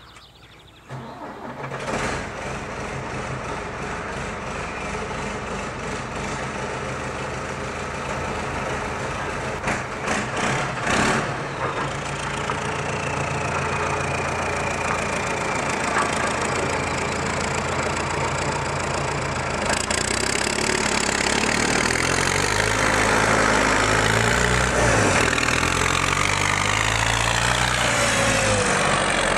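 Ford 7610 tractor's four-cylinder turbo diesel starting about a second in and idling, then pulling away under load with a trailer of about 8.3 tonnes of stones. The engine gets louder and its pitch shifts in the second half as it drives past close by near the end.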